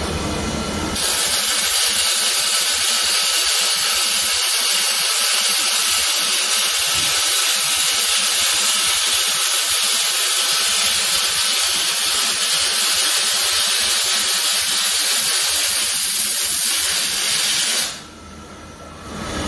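Robotic MIG welding arc crackling and hissing steadily, starting about a second in and cutting off sharply near the end as the weld finishes.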